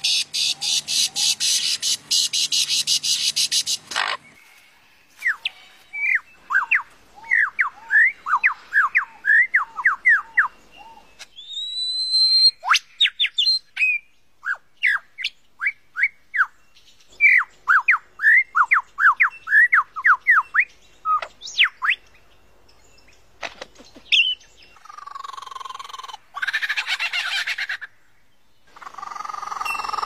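Lyrebird calling and mimicking. A fast rattling stream of clicks for about the first four seconds gives way to runs of quick, sweeping whistled notes, with one rising whistle near the middle. Harsher, fuller calls come near the end.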